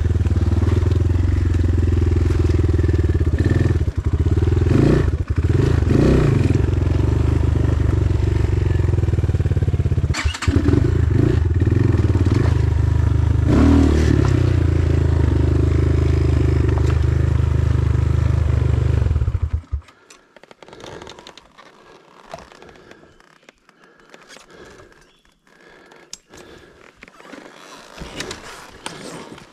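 Hengjian CB250's four-stroke, two-valve dirt bike engine running at low revs on a steep descent, with a few rises and falls in revs and brief throttle-offs. About twenty seconds in, the engine sound stops abruptly. After that only light irregular clattering and scraping remain as the bike moves on.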